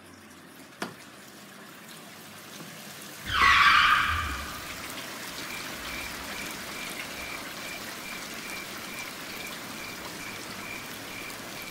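Steady rain falling outside, heard as a hiss, with a brief loud rush about three seconds in. A faint regular chirp, about two a second, sounds over the rain from about halfway through.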